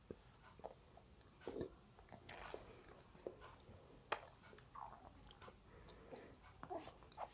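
A baby sucking milk from a feeding bottle's nipple: faint, irregular sucking clicks, with a sharper click about four seconds in.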